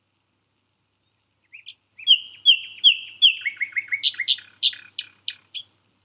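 Common nightingale singing one song phrase, starting about a second and a half in: a couple of short notes, four repeated down-slurred whistles, a fast run of lower notes, then a string of sharp, loud notes that stops shortly before the end.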